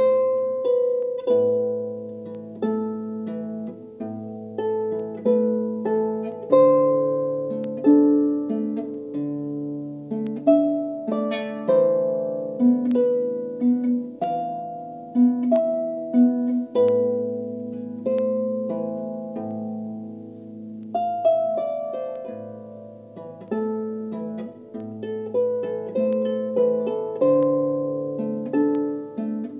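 Solo harp played by hand: plucked melody notes ringing and dying away over lower bass notes, in a slow habanera.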